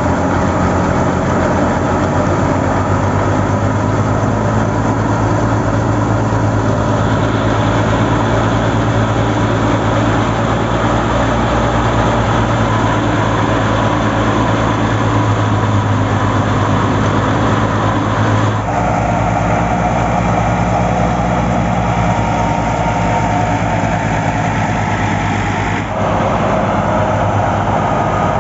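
Old Fiat 480 tractor's diesel engine running steadily under load, driving a wheat threshing machine through a long shaft, with the thresher running. The sound shifts abruptly twice, about two-thirds of the way through and again near the end.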